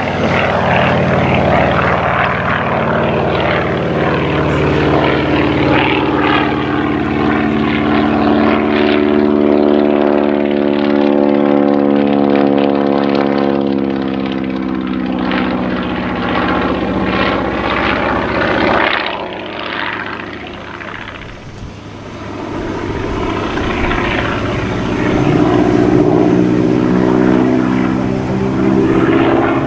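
Engine of a radio-controlled model propeller airplane in flight, running steadily; its pitch sinks slowly in the middle, it fades for a few seconds about two-thirds of the way through, then grows louder and higher again near the end.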